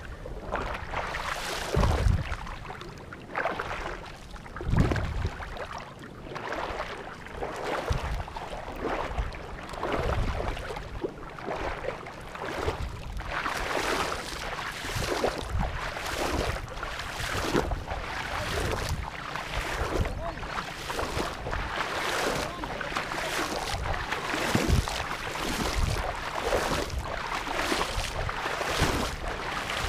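Legs wading through waist-deep water in a flooded paddy, splashing with each stride in a steady rhythm of roughly one splash a second.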